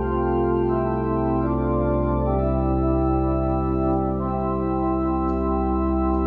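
Organ playing slow sustained chords over a held bass note, the chord changing a few times in the first few seconds.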